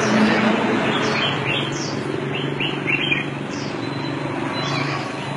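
Small birds chirping in short, repeated downward-sliding chirps, over a steady low hum and street background noise.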